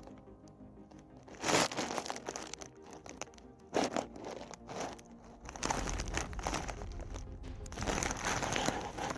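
Background music with crinkling rustles: short bursts about a second and a half in and near four seconds, then a longer run of crinkling in the second half.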